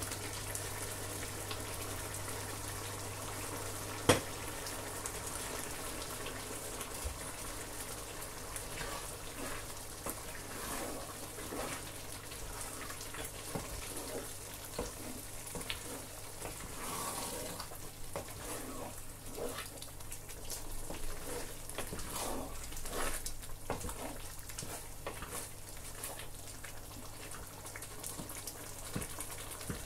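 Thick egusi soup with spinach being stirred in a pot with a wooden spoon, making wet sloshing and scraping, over a steady low hum. There is a single sharp knock about four seconds in.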